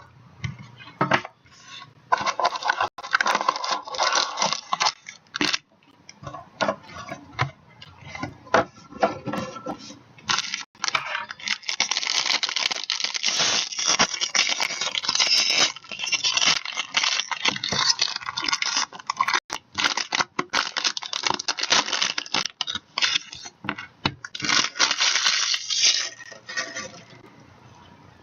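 Plastic wrapping being torn and crinkled while a sealed hockey card box and its pack are opened, with irregular rustling and sharp clicks of handling; the crinkling is densest from about eleven seconds in until near the end.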